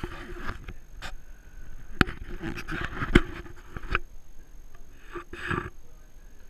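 Fabric rustling and scuffling with a few sharp knocks as a kitten clambers into a lap and is petted. The noise settles after about four seconds, with one more short rustle near the end.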